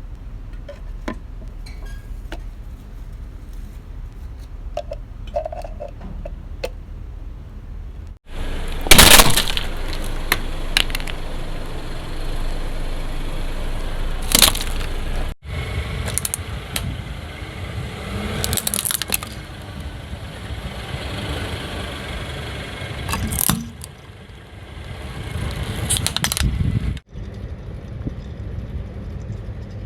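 A car's tyres rolling over objects and crushing them: loud sharp cracks and crunches, five times over, with the low rumble of the car between them. The first few seconds hold only that rumble and faint clicks.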